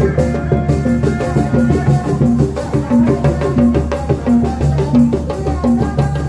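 Sundanese reak procession music played live: drums beaten in a steady rhythm under a short repeating pattern of pitched notes, with a higher melody line on top.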